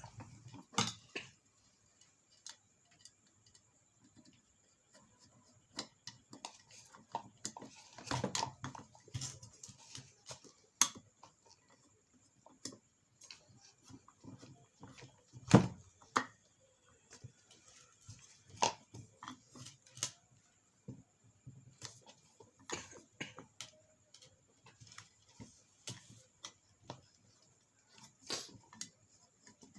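Scattered clicks and knocks of hand work on a ceiling fan's metal parts as its screws are fitted, with one sharper knock about halfway through.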